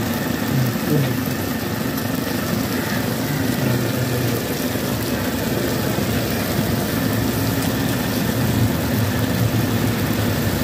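Steady roar of a gas burner under a small wok, with a tadka of oil, spices and tomato frying in it.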